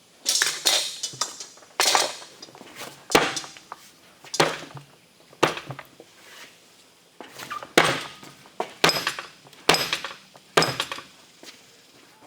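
Hand hammer striking a piece of naval brass on an anvil during forging: about ten sharp metallic blows, roughly one a second, each with a short ring, with lighter taps in between.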